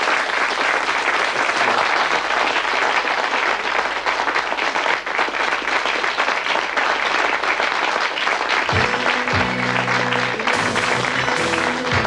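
Audience applauding steadily. After about nine seconds, closing theme music with a low bass line comes in over the applause.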